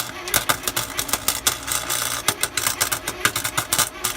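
Harbor Freight wire-feed welder arc sputtering and crackling irregularly, several sharp pops a second, over a low steady hum.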